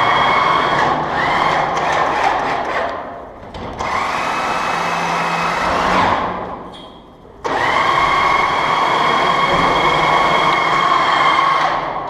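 Electric motor whining steadily in three runs. It cuts out about three seconds in and again around six and a half seconds. After each break it spins back up with a quick rise in pitch, the last time abruptly about seven and a half seconds in.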